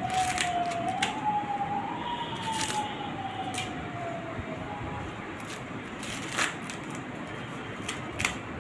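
Fresh corn husks being torn and snapped off the cobs by hand, in a series of sharp crackling rips, the strongest near the end. Over the first four seconds or so, a single wailing tone rises and then falls away behind it.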